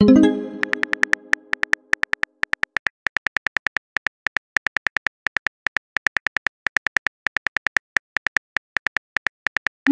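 Rapid keyboard-click typing sound effects from a texting app, about five clicks a second. At the start a message-sent sound rings and fades over about two seconds, and near the end a short rising swoop marks another message being sent.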